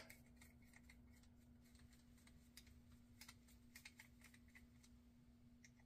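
Near silence with faint, scattered light clicks of a screwdriver and small metal parts against the side plate of a Penn Peer 209 fishing reel being taken apart, over a faint steady hum.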